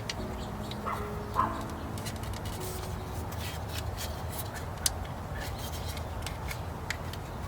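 Scattered light clicks and taps of small metal clips being fitted onto a plastic door pull handle by hand, one click sharper than the rest, over a steady low hum.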